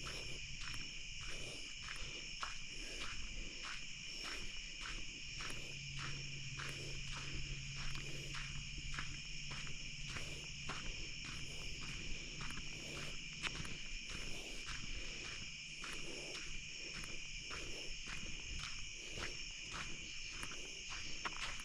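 Steady night chorus of crickets and other insects, a continuous high trilling at several pitches, with footsteps in the undergrowth about twice a second.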